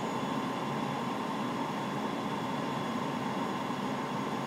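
Steady airliner flight-deck background noise during approach: an even rushing hiss of air with a faint steady tone running through it.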